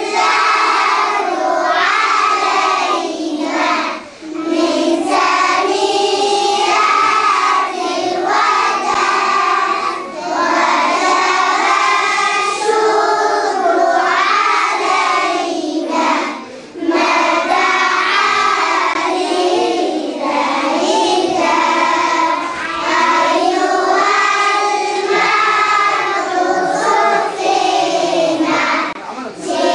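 A class of children singing together in chorus, with short breaks between lines.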